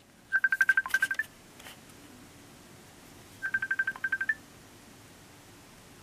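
Facebook Messenger incoming video-call ringtone on a smartphone: two rounds of quick high beeps, each ending on a slightly higher note, about three seconds apart.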